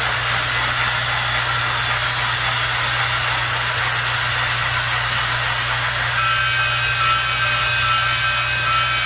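Battery-powered TOMY Trackmaster toy train's motor and gears whirring steadily as it runs along its plastic track, over a low hum. A few steady tones join in about six seconds in.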